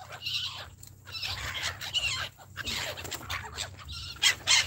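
A flock of gulls calling around someone feeding them bread: many short, harsh squawks overlapping, loudest near the end, over a low steady rumble.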